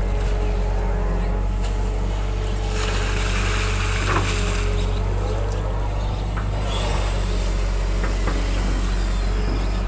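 Excavator's diesel engine running steadily under load while it works, with a stretch of hiss about three seconds in and a single knock soon after.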